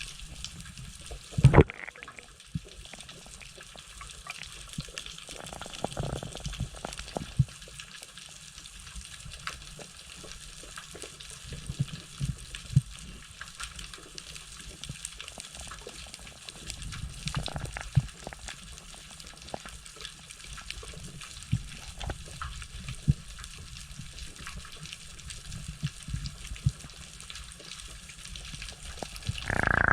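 Sea water heard through a diving camera: a steady watery hiss with scattered crackling clicks throughout and one sharper knock about a second and a half in.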